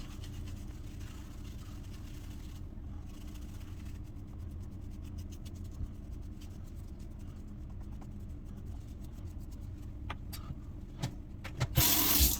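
Shaving brush working lather back onto the face for the second pass: soft bristle rubbing and fine scratchy ticks over a steady low hum, with a brief loud rustle near the end.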